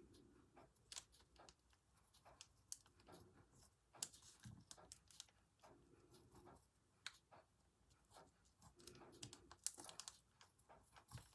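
Faint scratching, light taps and paper rustles of a pen tracing over a paper template laid on fabric to transfer a design.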